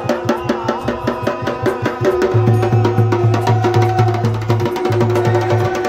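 Music with a fast, even percussion beat. About two seconds in, a pulsing low bass note joins under a held melody note.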